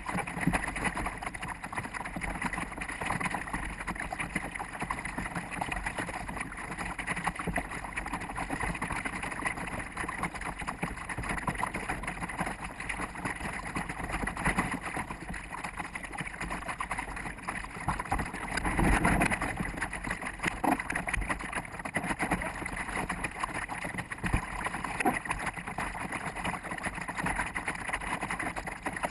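Steady wind and water noise from a sailboat under way: wind buffeting the microphone and water rushing along the hull, sped up to four times normal speed. A louder rush comes about two-thirds of the way in.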